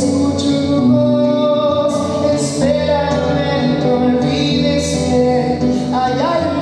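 A man singing a song while accompanying himself on an acoustic guitar, voice and guitar carried through a microphone.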